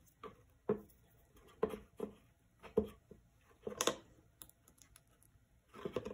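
Light, irregular taps and clicks of fingers handling a painted box frame and the small glued-on pom-poms on it, the loudest a little before four seconds in.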